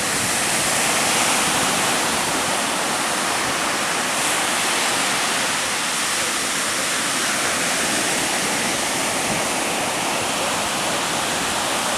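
Steady roar and hiss of rough sea surf in strong wind, with no letup.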